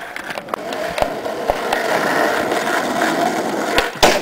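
Skateboard wheels rolling over rough asphalt, a steady gritty rumble, with a few sharp clacks of the board and a loud clack near the end as the board hits the wooden box or the pavement.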